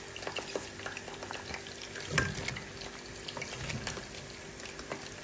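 Cauliflower florets tipped from a metal colander into a pot of boiling water, with bubbling and crackling throughout and one louder splash and knock about two seconds in.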